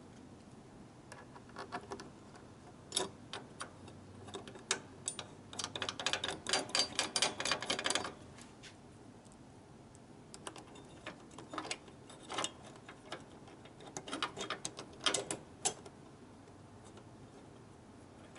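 Light metallic clicking and ticking from the steel intake-tube support brackets and their 10 mm bolts being handled and threaded in by hand. The clicks come in scattered clusters, with a fast run of them lasting a couple of seconds a little before the middle.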